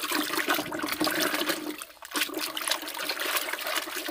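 Water sloshing and splashing in a bucket as a plastic toy is swished and scrubbed around by hand, with a brief lull about halfway through.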